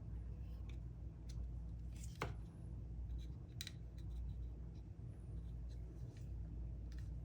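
Jump starter's jumper cable clamps and cables being handled: scattered light clicks and taps, the loudest about two seconds in, over a steady low hum.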